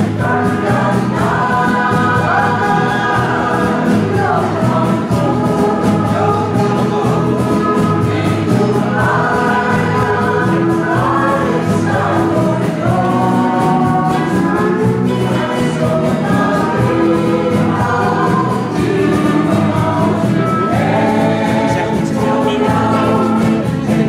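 Indisch choir singing together with its small accompanying band of guitars and bass guitar, a steady bass line repeating underneath the voices.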